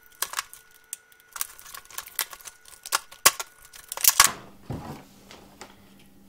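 Clear plastic blister packaging of an adjustable wrench set crackling and snapping as it is pulled open, a quick run of sharp clicks and crinkles over about four seconds, loudest near the end. After that, only faint room tone.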